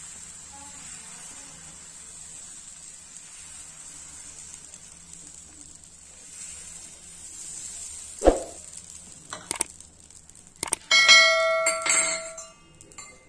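Dosa batter sizzling faintly and steadily on a hot tawa. About eight seconds in come a few sharp metal clinks of a steel ladle and vessel, then a loud clang that rings for over a second.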